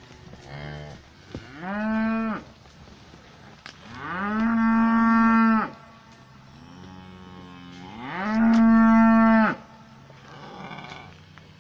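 Cows mooing: three loud moos, the last two longer, each rising in pitch at the start, holding steady and dropping at the end. Quieter, lower moos come in between.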